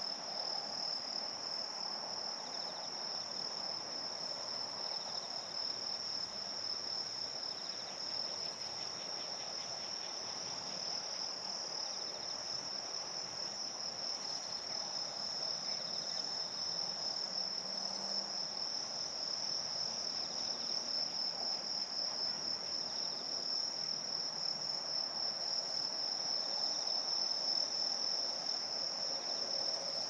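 A steady chorus of autumn crickets, a continuous high-pitched trilling that never breaks, over soft background noise.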